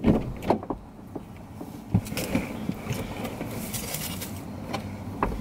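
Sounds inside a car cabin: a few sharp knocks and thumps of someone moving in the driver's seat, over a steady low rumble.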